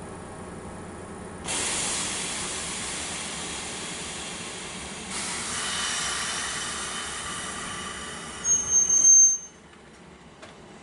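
Kintetsu express train standing at the platform before departure. A steady hiss starts suddenly about a second and a half in and grows louder with a faint whine a few seconds later. A short, loud, high-pitched whistle sounds near the end, and then the hiss cuts off abruptly.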